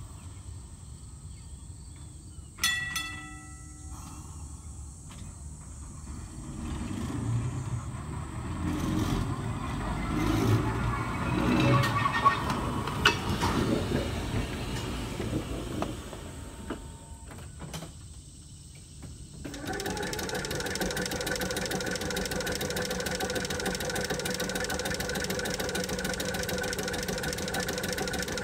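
Brooklyn Rapid Transit open streetcar 4573. A gong or bell strikes once and rings briefly a few seconds in. The car then rolls out with a rumble of motors and wheels on rail, with some squeal and clicks. About two-thirds of the way through, with the car standing, a steady mechanical running sound starts suddenly and holds, typical of the streetcar's air compressor.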